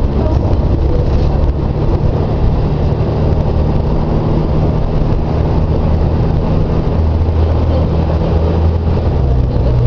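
Diesel engine of a Volvo B58 bus running steadily under way, a deep low drone whose pitch shifts a little about seven seconds in and again near the end.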